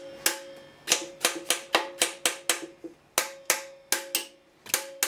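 Hammer blows on the steel head studs of a 1969 Jaguar 4.2-litre straight-six, about four sharp metallic strikes a second in quick runs, each leaving a ringing note. The studs are being driven down to break the seized, corroded cylinder head free.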